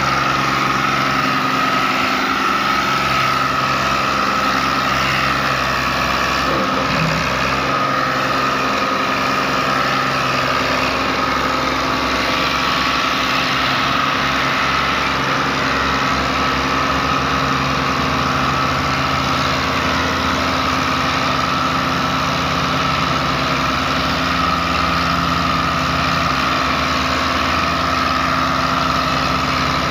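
Fiat 480 tractor's three-cylinder diesel engine running steadily under heavy load, hauling a fully loaded sugarcane trolley.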